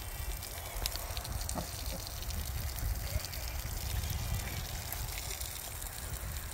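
A sow and her piglets eating: wet smacking and small irregular crunches as they chew watermelon and root through scattered grain feed, over a steady low rumble.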